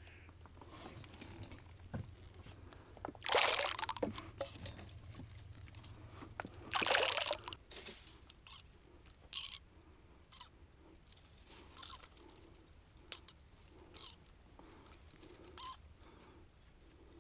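Water splashing and sloshing in two loud surges, the second ending about seven and a half seconds in, followed by a string of small sharp ticks and drips.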